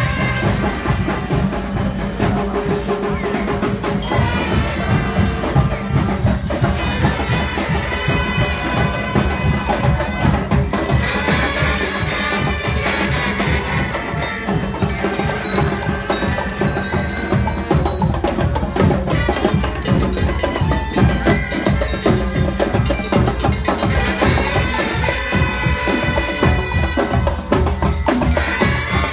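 Marching band playing, led by metal bell lyres ringing out the melody over steady drum beats and brass.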